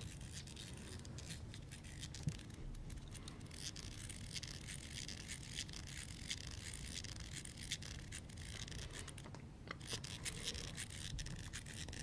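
Plastic fidget cube being fiddled with: a dense run of small clicks with a scratchy rubbing between them.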